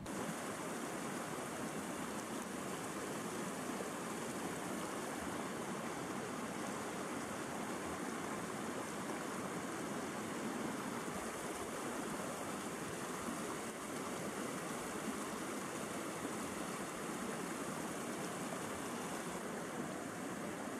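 Fast mountain river rushing over rocks, a steady roar of white water.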